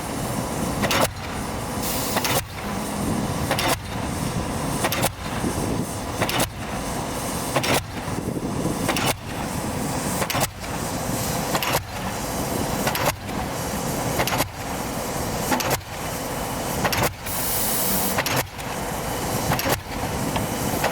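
Pile-driving hammer on an EO-5111B excavator's pile-driver rig striking a pile in a steady rhythm, about one blow every second and a third, with a steady mechanical din between blows.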